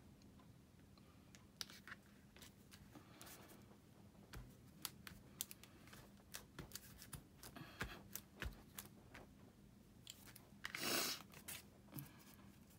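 Cardstock layers being pressed together and handled by hand: faint scattered clicks and papery crinkles, with a louder rustle near the end.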